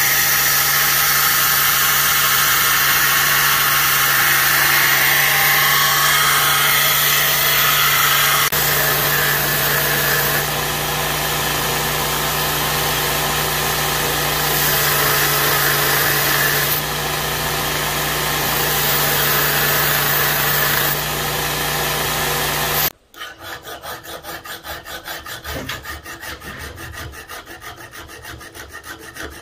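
Belt grinder running with a steel knife blank pressed against the belt: a loud, steady hiss over a constant motor hum. About 23 seconds in it cuts off abruptly, and a hand file scrapes back and forth across the blade at about two strokes a second.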